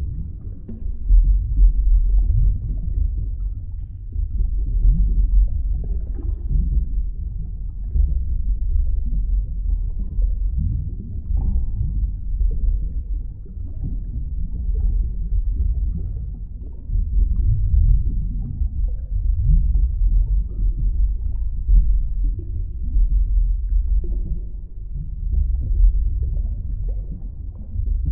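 Underwater ambience: a low, muffled, churning rumble that swells and fades every few seconds.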